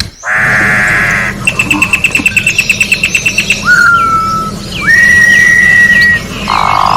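Campo troupial (corrupião) song. A harsh buzzy note opens it, then comes a fast rattle of short notes at about nine a second, a short whistle and a long held whistle, and near the end another harsh buzzy note.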